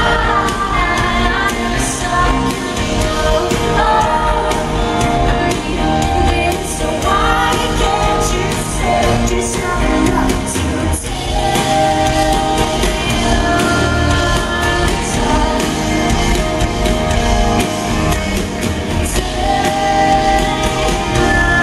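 Live rock band playing a song: a woman singing long, gliding notes over keyboard, electric guitars and drums, heard from among the audience in a concert hall.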